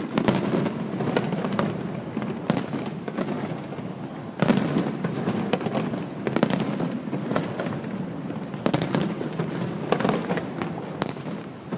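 Fireworks display: a dense run of bangs and sharp crackling cracks over a continuous rumble, recorded on an iPhone, surging loudest just after the start and again about four and a half seconds in.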